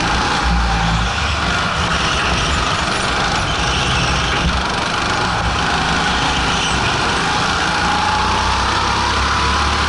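Go-kart engine running hard, heard from an onboard camera on the kart. Its pitch drops through a corner and climbs again as the kart speeds up onto the straight near the end.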